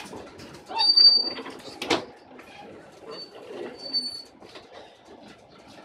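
Passenger train running, heard from inside the carriage: a steady rolling rumble, a sharp knock about two seconds in, and three brief high whistling tones.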